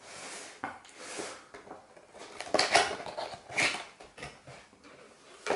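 Cardboard box being opened by hand: flaps scraping and rustling, with several sharper crackles in the middle and a short knock near the end.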